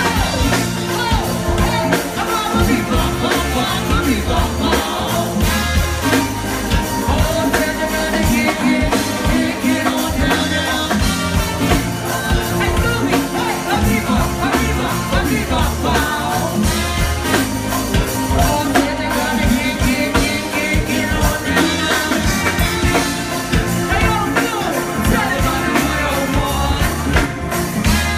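Live go-go band playing over a steady drum beat, with bass and a singing voice.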